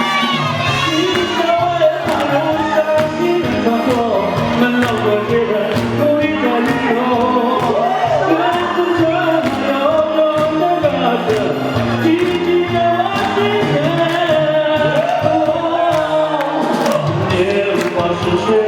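A man singing a slow song into a microphone over a backing track with a steady, even beat.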